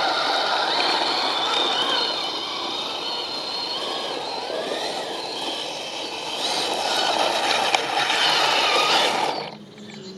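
Electric drive motors and gearboxes of a 3D-printed radio-control Kettenkrad model whining as it drives, with its plastic tracks clattering. The whine rises and falls in pitch with speed. It is quieter as the model runs off across the grass and louder as it comes back close. The level drops sharply near the end.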